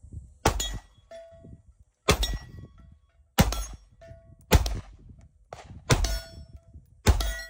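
Six single shots from a SAR9 9mm pistol, fired at a slow, even pace about a second and a half apart. Each shot is followed by the brief ring of a steel target plate being hit.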